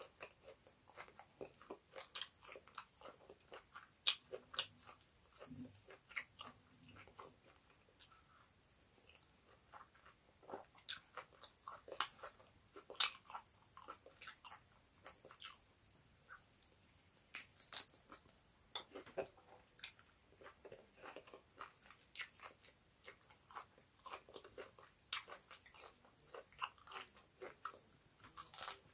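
A person eating by hand, chewing and biting yam in tomato sauce and a piece of meat on the bone: irregular sharp mouth clicks and crunches.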